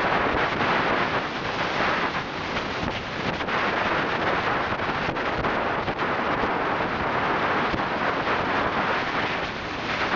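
Steady wind noise buffeting the microphone, mixed with water rushing past the hull of a rigid inflatable boat running at high speed.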